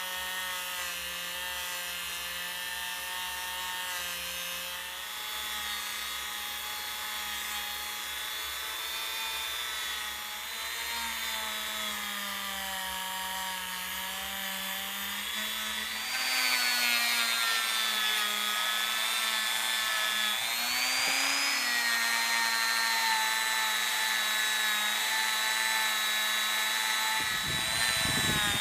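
Electric polishing machine running as steel and brass screwdriver parts are polished, a steady motor whine that dips and recovers in pitch as the work is pressed against it. It gets louder about halfway through.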